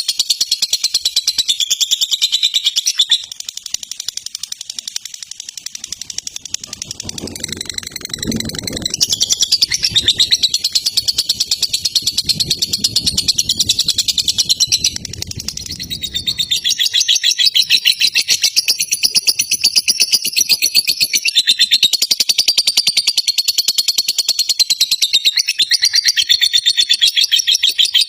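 Lovebird singing a long, fast, run-on chatter of chirps, the fighter-style song used as a master recording for training lovebirds, with a brief drop in loudness a few seconds in. A low rumble sits under it from about six to seventeen seconds in.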